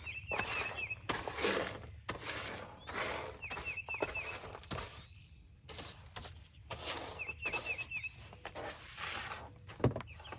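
Bursts of scraping and rustling, one after another, typical of demolition work in an RV's water bay. Over them a bird repeats a short phrase of four or five quick high notes about every three and a half seconds.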